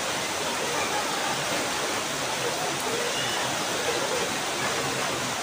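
Steady, even rushing noise at a constant level, with faint voices in the background.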